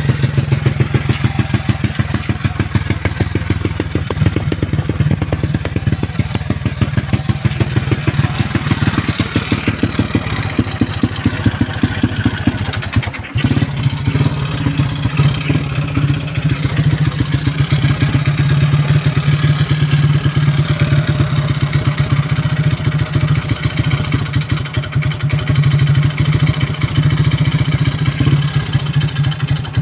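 Honda EX5 Dream's single-cylinder four-stroke engine, bored to 56mm, idling with a fast, even beat just after being started following long storage. About halfway through it briefly dips, then settles into a steadier idle.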